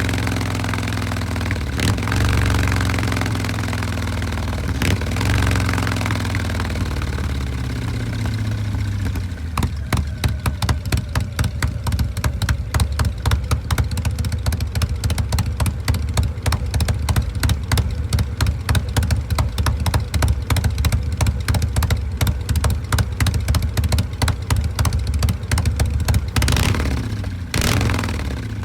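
A 2018 Harley-Davidson Breakout's Milwaukee-Eight 114 V-twin with an S&S 475 cam, running through S&S Grand National mufflers. It revs with a few throttle blips, then settles about nine seconds in to a loping idle of about four to five exhaust pulses a second, with a brief rev near the end.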